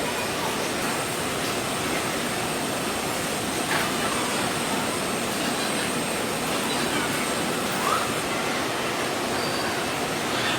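Steady industrial machine noise, a continuous hiss-like din with a faint high whine and a few brief faint squeaks and clicks.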